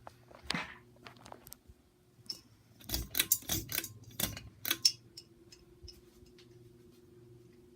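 Harbor Breeze Pulsar ceiling fan's motor humming steadily. In the middle comes a burst of sharp clicks and rattles, about two seconds long and louder than the hum.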